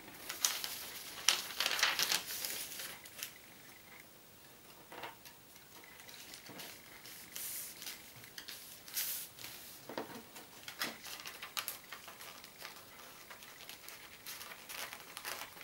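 Paper from glossy advertising flyers rustling and crinkling as it is handled, smoothed flat and rolled onto a wooden skewer: scattered short scrapes, busiest and loudest in the first three seconds, then sparser.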